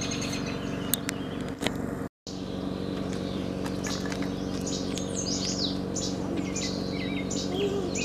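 Small wild songbirds chirping: short high chips and calls repeated about twice a second. The sound cuts out completely for a moment about two seconds in.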